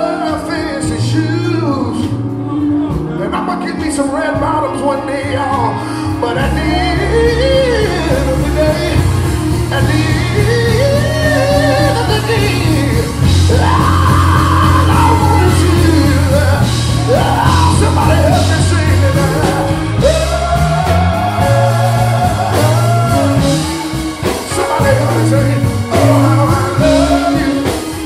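Male gospel singer singing live into a handheld microphone, in long sliding, melismatic runs, over accompaniment with held bass notes that change every second or two.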